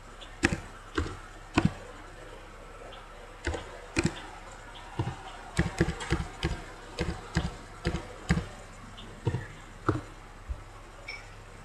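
Computer keyboard keys clicking in an irregular run of about seventeen keystrokes as a phone number and then a short password are typed. Under them runs a faint steady low hum.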